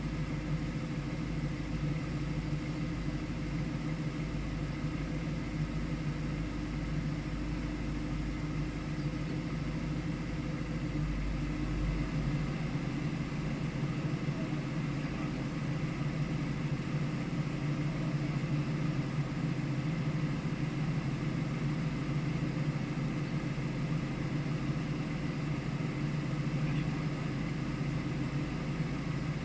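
A vehicle engine idling steadily, holding an even hum with no revving. A deep low rumble underneath drops away about twelve seconds in.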